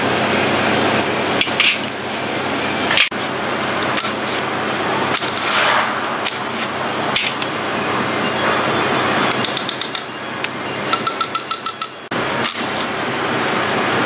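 Steel wrench clinking and knocking against metal as the oil pump and its pickup strainer are unbolted and lifted off the underside of an engine block, over a steady background noise. Near the middle come two short runs of rapid, evenly spaced clicks.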